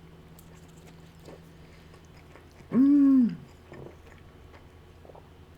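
A person eating a taco, with faint chewing and mouth sounds. About three seconds in comes one loud wordless 'mmm' of enjoyment, lasting about half a second, that rises and then falls in pitch.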